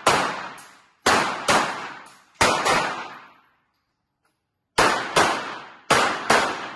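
Handgun shots fired during a practical pistol course of fire, mostly as quick pairs about half a second apart, with a pause of about two seconds midway. Each shot is sharp and rings out with a long echo off the hard walls of the indoor range.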